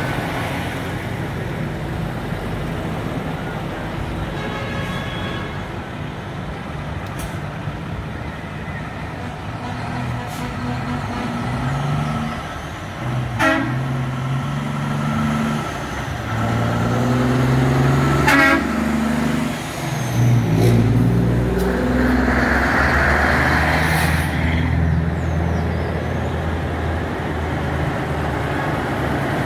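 Diesel trucks running as they pass in a slow convoy, with truck horns sounding several times through the middle, in held, stepped tones. A short rush of noise follows.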